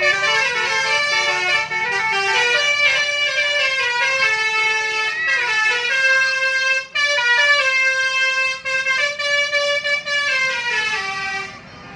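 Telolet horn on a Jetbus 5 coach playing a tune: several horn tones sounding together, stepping up and down in pitch. It breaks off briefly about seven seconds in and fades near the end.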